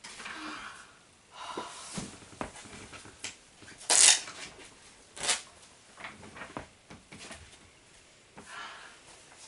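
Paper sheets rustling and crackling in short, irregular bursts as they are handled and pressed flat on a cloth, with one louder rustle about four seconds in.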